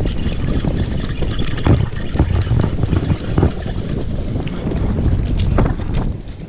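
Wind buffeting the microphone, a heavy low rumble, with scattered knocks and rustling.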